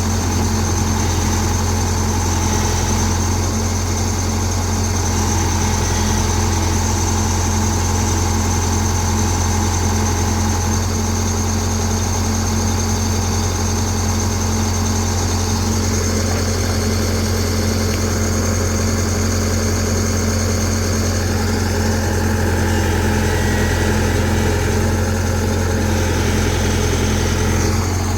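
Tata Hitachi excavator's diesel engine running steadily with a deep, even hum; its tone shifts slightly about two-thirds of the way through.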